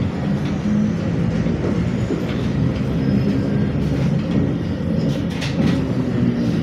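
Cabin noise of a ZiU-682KR trolleybus under way: the electric traction drive's steady hum over road and body noise, with a few short clicks and rattles about five seconds in.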